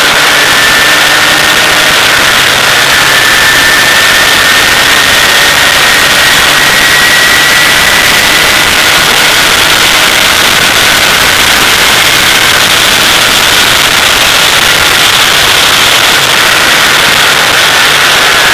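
Formula 2000 race car's engine running hard at speed, heard through heavy wind rush on the onboard camera microphone. The engine note climbs slowly as the car accelerates, holds, then drops a little near the end.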